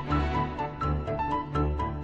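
Background music: a melody of short notes over a repeating bass.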